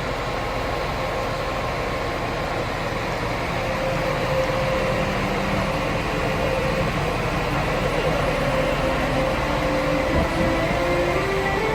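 Train running at a station platform: a steady rumble with a whine that climbs in pitch over the last few seconds.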